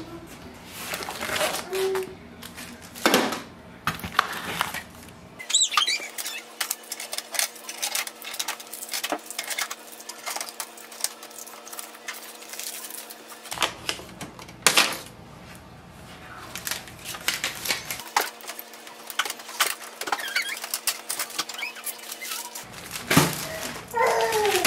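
Unboxing noises: a box cutter slitting the carton, then cardboard, packing tape and plastic film being pulled and rustled off a new laser printer, with many scattered clicks and crinkles.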